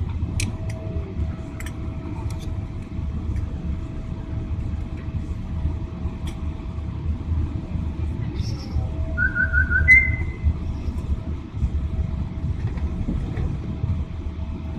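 Airliner cabin noise while the plane rolls along the ground after landing with its spoilers raised: a steady low rumble with a faint steady tone over it and a few light clicks. A short series of electronic beeps sounds about nine seconds in.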